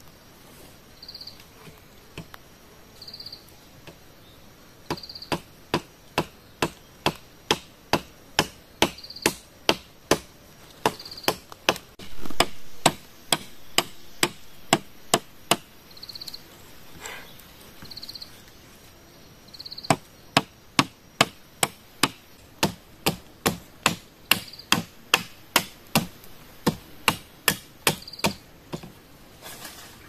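Machete blade chopping into a green bamboo pole resting on a log: runs of sharp knocks about two a second, with a pause of a few seconds midway. An insect chirps in short high pulses every second or two in the background.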